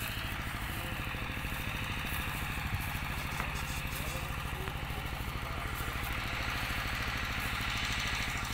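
A small engine idling steadily, with an even, fast low pulse that does not change.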